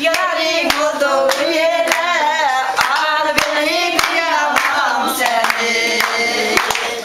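Women singing a Turkish folk song (türkü) in rough unison, with hand claps keeping time.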